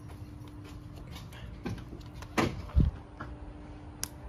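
A pickup truck door being shut: a swish and then a heavy low thump between two and three seconds in, with a short click near the end.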